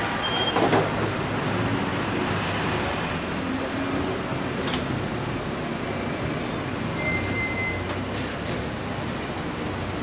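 Steady street traffic noise of vehicles running and passing, with a low hum and a couple of short clicks.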